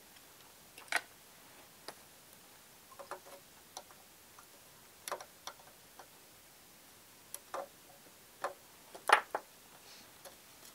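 Irregular light clicks and taps from hands handling a circuit board, tools and small electronic components on a workbench, about a dozen in all, the loudest a cluster about nine seconds in.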